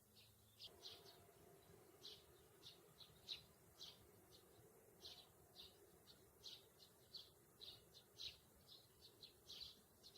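Faint bird chirping: short high notes repeated irregularly, about two or three a second, over a faint low steady hum.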